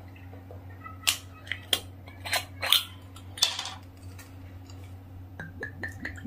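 Metal twist-off cap of a glass soju bottle being worked open, giving a run of sharp clicks and scrapes over the first few seconds. Near the end the soju starts trickling into a small glass shot glass.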